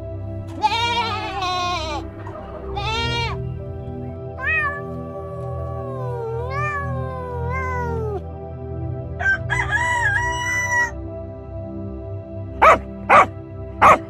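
Background music with a string of animal calls over it. Two wavering calls come in the first few seconds. A cat meows in long gliding calls through the middle, and three short, sharp calls come near the end.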